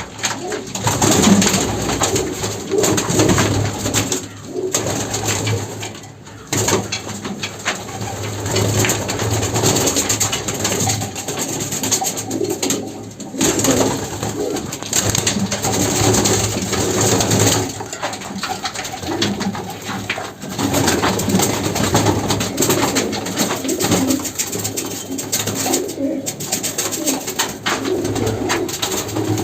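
Domestic homing pigeons cooing over and over, several birds calling at once in a small enclosed loft.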